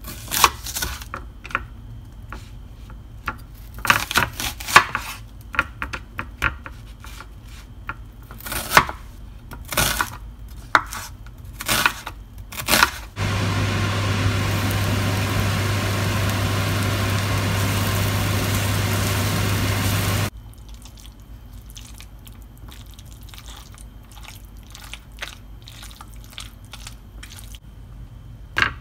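A knife cutting through an onion, crunching and knocking on a wooden cutting board in a series of irregular strokes. About halfway through, a steady loud hiss with a low hum starts and stops abruptly after about seven seconds. After it come faint ticks and one sharp knock near the end.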